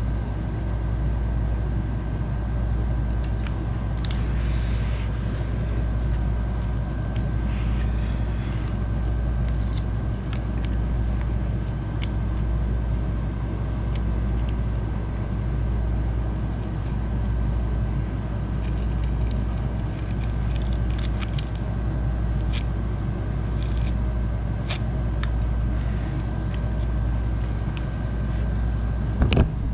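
Snap-off utility knife scoring through old linoleum, heard as scattered short scratching strokes and clicks, with denser bursts of scratching now and then. Under it runs a loud, steady low hum with a faint steady whine.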